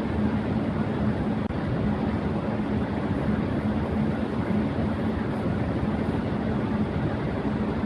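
Electric fan running steadily at high speed: a constant rush of moving air with a steady low hum from the motor.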